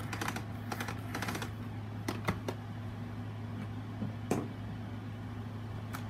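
Steady low hum of a room air conditioner running, with a few scattered light clicks and taps over it.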